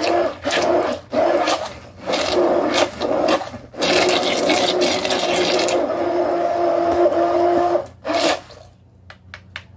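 Handheld immersion blender running in a pot of strawberries, pulsed on and off in several short bursts, then held on for about four seconds and stopped shortly before the end. It is breaking up the berries for preserves, just enough to chop them rather than purée them.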